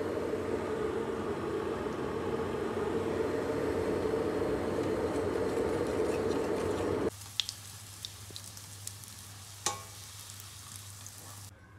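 Wire whisk beating pancake batter in a plastic mixing bowl: a steady, rapid scraping and clatter. About seven seconds in it cuts suddenly to pancakes frying in a nonstick pan, a quieter sizzle with small crackling pops.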